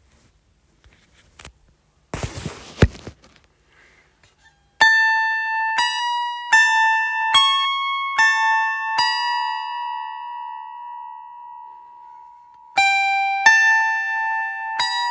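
A short rustle with a click about two seconds in, then a plucked string instrument playing slow single notes, each struck cleanly and left to ring out and fade, with one note held long before a few more follow near the end.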